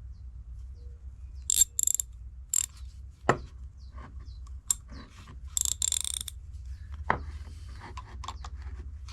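Indestro 2776 hand ratchet being worked, its pawl clicking in two short rapid bursts, with a few single sharp knocks of metal tools being handled in between.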